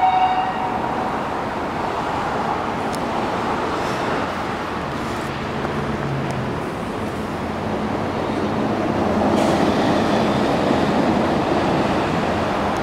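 Road traffic noise: a steady rush of passing vehicles that swells about two-thirds of the way through. The last of an ambulance's siren tones cuts off just at the start.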